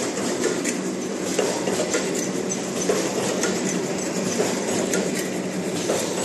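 Wet wipes folding and packing machine running: a steady mechanical clatter full of quick light clicks, over a faint steady hum.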